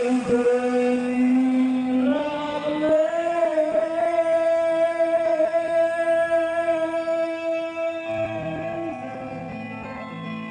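Amplified live music with singing: a voice slides up into long held notes, the longest held for about six seconds, over a plucked-string accompaniment.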